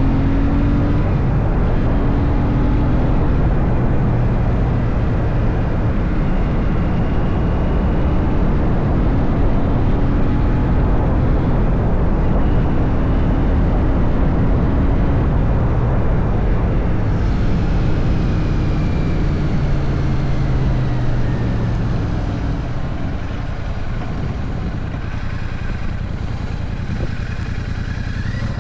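Royal Enfield Shotgun 650's parallel-twin engine running while riding, its pitch stepping up and down several times, under a dense rush of wind and road noise. The engine eases off and the sound drops somewhat near the end.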